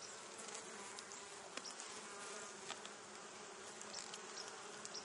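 Honeybees buzzing steadily around their hive, the colony agitated and defensive. A few faint ticks sound over the hum.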